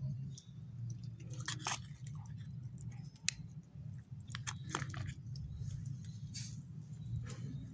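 A beagle chewing raw chicken breast bone: sharp crunches and cracks at irregular intervals, over a steady low hum.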